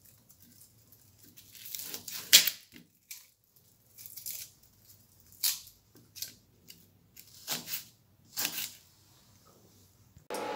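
Kitchen knife slicing a raw onion held in the hand, a short crisp crunch with each cut, at irregular intervals about a second apart.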